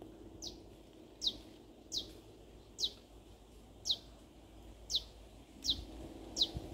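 A bird calling: a series of about nine short, high whistled notes, each falling in pitch, repeated roughly once a second.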